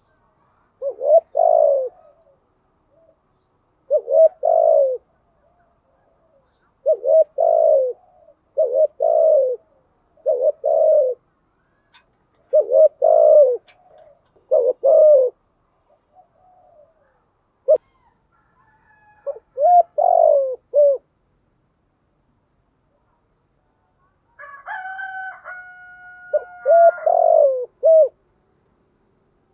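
Spotted dove cooing in short repeated phrases of a few low notes each, a second or two apart. Near the end a steady, higher two-note tone sounds for about two seconds over the coos.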